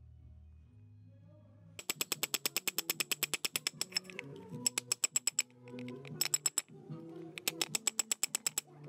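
Rapid metal-on-metal tapping as a chisel is hammered against the rusted retaining nut on the spindle of a Makita 4100NB cutter's gear housing to break it loose. It comes in four quick runs of about ten ringing strikes a second, starting about two seconds in, over background music.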